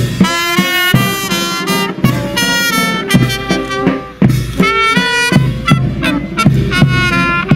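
Ceremonial brass band playing a tune over a steady drum beat, accompanying the inspection of a guard of honour.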